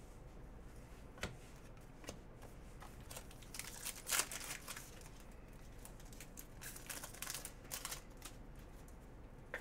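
Trading cards and a foil card pack being handled: faint crinkling and rustling in short bursts, with one click about a second in and the loudest crinkle about four seconds in.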